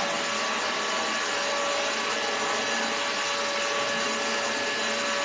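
Keromee 2-in-1 cordless handheld vacuum cleaner running steadily: a constant motor whine over a rush of air, with no change in pitch or level.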